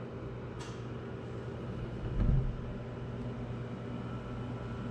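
A steady low hum, like a motor or machine running, with a faint click about half a second in and a dull thump about two seconds in.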